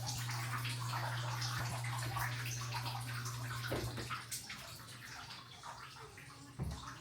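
Shower running, water spraying and splashing into the tub over a steady low hum. The sound drops away about four seconds in, and a single dull thump comes near the end.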